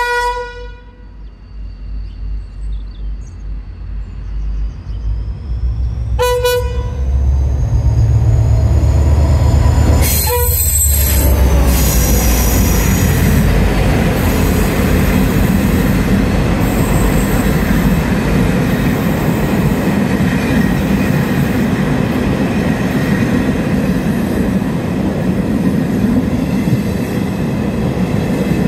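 Irish Rail 071 class diesel-electric locomotive, with its EMD 12-cylinder two-stroke diesel, sounding three short horn blasts as it approaches: one at the start, one about six seconds in and one about ten seconds in. Its engine rumble builds as it nears and passes, then the coaches follow with a steady loud rumble of wheels on the rails.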